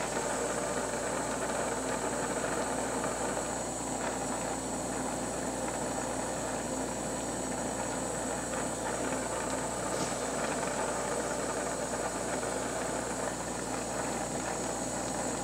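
Steady hiss of a National glassworking bench torch burning with a number 2 tip.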